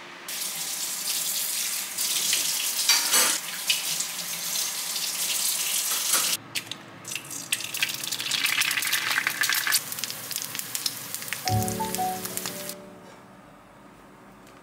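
An egg frying in an iron skillet, sizzling and crackling loudly, in two stretches with a sudden break about six seconds in. The sizzle stops near the end, leaving soft piano music.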